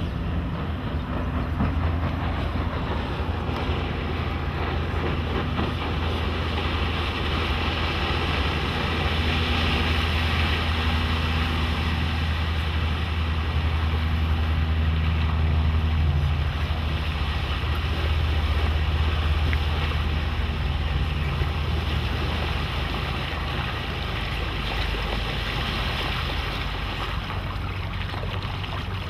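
Suzuki 175 hp four-stroke outboard pushing a walkaround fishing boat under way: a steady low engine drone over the hiss of the hull through the water and wind on the microphone. It grows a little louder midway as the boat comes close.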